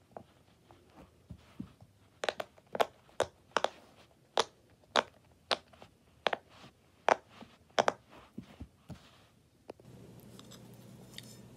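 Bubbles of a silicone pop-it fidget toy being pressed in one after another, each giving a sharp pop, about two a second for several seconds. Near the end the pops stop and a low steady hum comes in.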